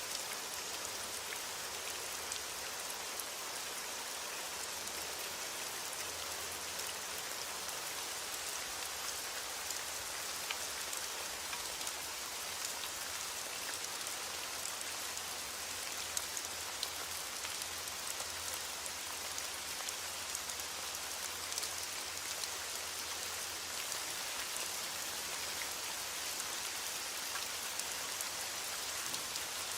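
Steady rain falling: an even, unbroken hiss with a dense patter of drops and scattered small ticks.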